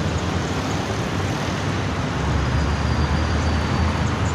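Road traffic noise: a steady rumble of passing vehicles that swells about halfway through.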